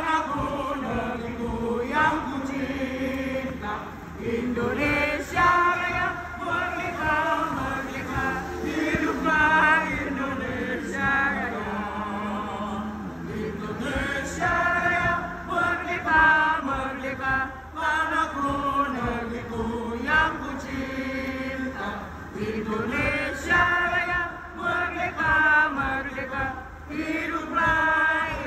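A large crowd of spectators singing together in the grandstand, many voices carrying one rising and falling melody.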